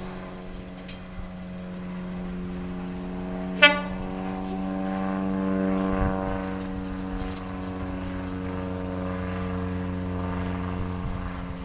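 Class 121 'bubble car' diesel railcar pulling away and approaching, its engine drone steady and growing louder, with one brief, sharp horn toot about four seconds in.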